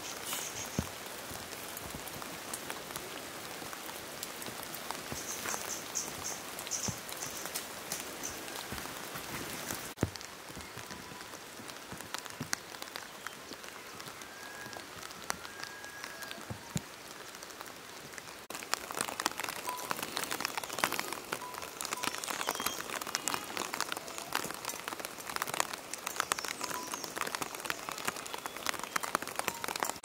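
Rain falling: a steady, dense patter of drops that grows heavier and louder a little past halfway through.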